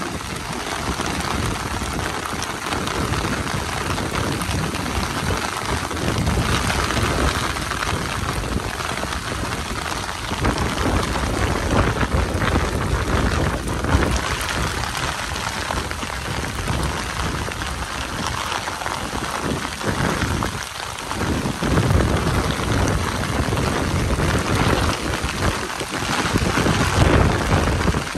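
Heavy rain pouring steadily, a dense hiss of drops, with a low rumble underneath that swells and dips.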